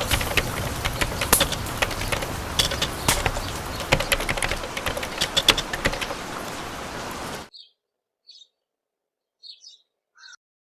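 Birds: a dense ambience of chirps and sharp clicks that cuts off abruptly about seven and a half seconds in. A few short, faint chirps follow.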